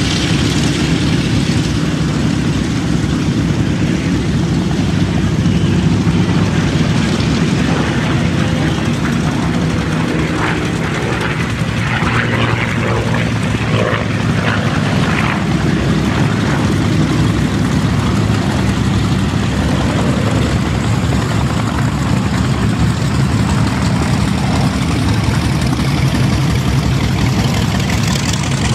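Twin radial piston engines of a Douglas A-26 Invader running with a steady, deep propeller drone as the aircraft taxis and then rolls for takeoff.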